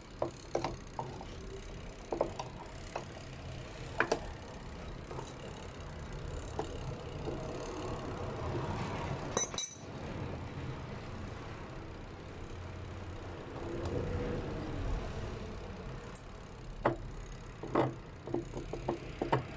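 Scattered metal clinks and knocks of hand tools and parts as the underside of an automatic washing machine is taken apart, over a steady low hum.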